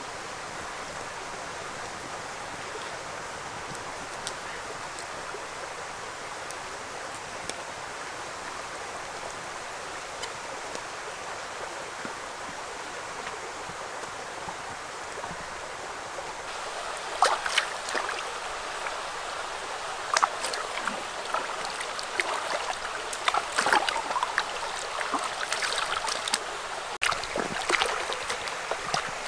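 Shallow stream flowing steadily. From a little past halfway, irregular splashing joins it as a plucked chicken is swished and rubbed in the water.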